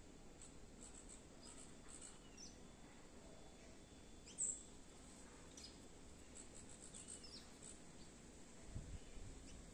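Faint, high bird chirps in a quiet outdoor background, with one sharper, short falling chirp about four and a half seconds in and a low rumble near the end.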